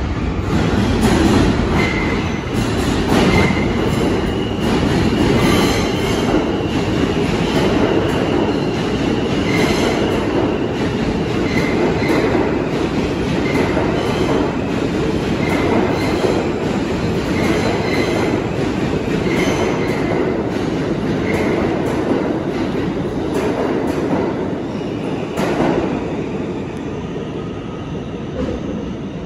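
R160 subway train running through the station at speed without stopping: a steady, loud rumble of steel wheels on the rails, with short wheel squeals every second or two and a sharp knock near the end as the sound tapers off.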